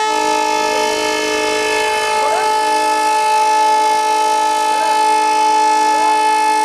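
Diesel locomotive air horn blowing one long, continuous blast, with several tones sounding together at a steady pitch.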